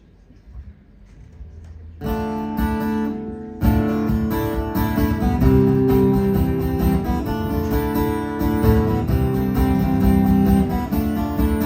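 Live band music beginning a song's instrumental intro. After a faint quiet start, a guitar chord rings out about two seconds in, and about a second and a half later strummed guitar and the rest of the band come in with a steady beat.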